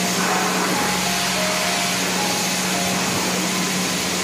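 Water from a hand-held shower sprayer running steadily over a dog in a stainless steel grooming tub, an even hiss with a steady low hum beneath it.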